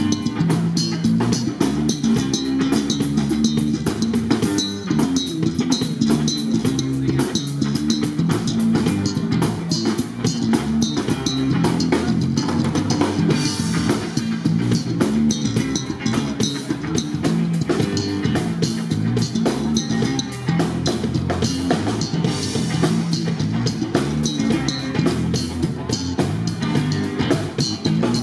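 Band music: a drum kit keeping a steady, busy beat with cymbals, over electric bass guitar and guitar.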